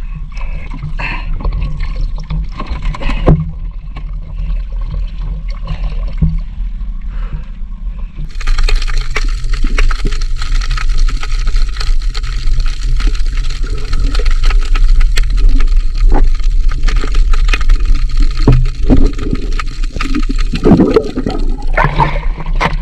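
Shallow sea water sloshing and splashing around a wading crab hunter, over a steady low hum. About eight seconds in the sound changes suddenly to a dense, steady hissing crackle as the microphone goes underwater. Splashing returns near the end as a blue swimming crab is lifted out of the water.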